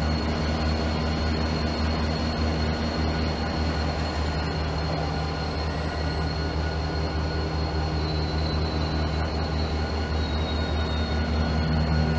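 Trenhotel sleeper train heard from on board at a station: a steady low hum and a thin high whine, the whine rising slightly about two-thirds of the way through.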